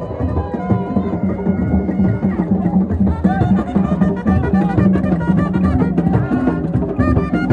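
Borborbor music: drums and other percussion playing a dense, steady rhythm, with a bending melody line over it from about three seconds in.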